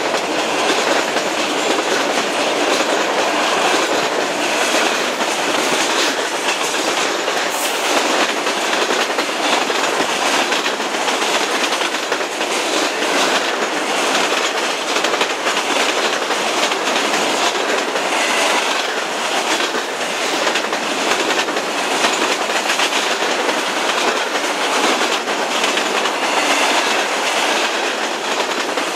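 Freight cars of a Union Pacific manifest train rolling past at speed close by: steady wheel-on-rail noise with a continual stream of clicks as the wheels pass over rail joints.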